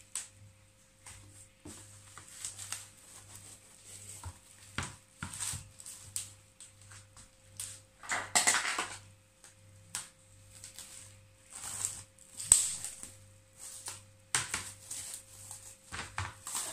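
Clear plastic cling film crinkling and rustling in irregular bursts as it is pulled from the roll and pressed over a plastic bowl, loudest about halfway through.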